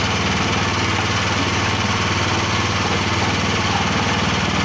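Motor-driven waste grinding machine running steadily, a low even drone with a fast regular pulse and a hiss of grinding.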